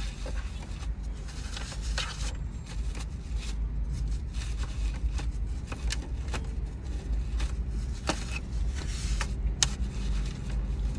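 Steady low hum inside a car, with irregular small scrapes and clicks of things being handled close by.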